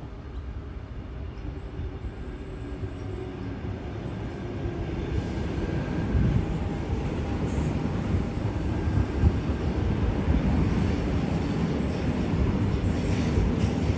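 Sydney Trains Tangara electric train running into the station, its rumble growing steadily louder as it draws closer and passes, with faint thin tones from the running gear above it.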